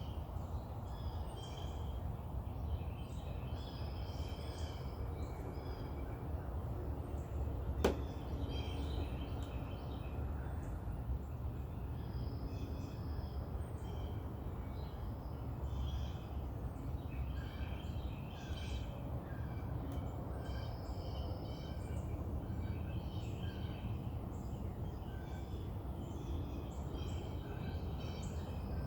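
Many small songbirds chirping and trilling at a distance over a steady low outdoor rumble. A single sharp click about eight seconds in.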